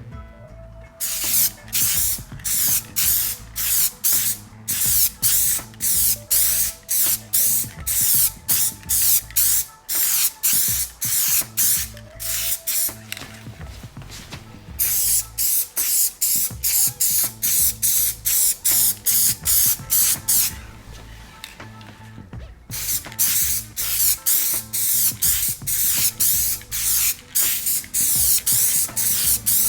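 Aerosol spray can of Duplicolor Custom Wrap prep coat sprayed in short, quick bursts, about two a second, with two brief pauses. This is the spray-painting of the first coat.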